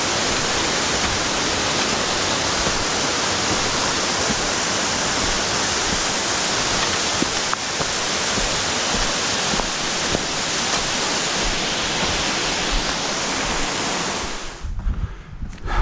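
Steady, loud rushing of a small mountain waterfall cascading over rocks, which cuts off suddenly near the end.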